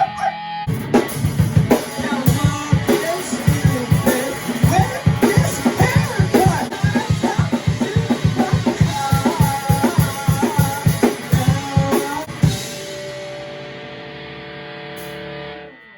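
A rock band rehearsing a new song: drum kit with kick and snare driving a steady beat under guitar. About twelve seconds in the playing stops on a held chord that rings on until it cuts off near the end.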